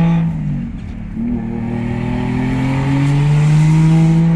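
Lexus IS300's swapped-in 1JZ-GTE turbocharged inline-six, heard from inside the cabin while driving. It drops briefly in level and pitch about half a second in, then pulls with a steadily rising pitch as the car accelerates.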